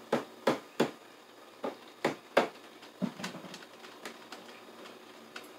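A run of sharp knocks and clicks from hand tools working on a breaker panel: quick and loud at first, about three a second, then sparser and fainter after about two and a half seconds.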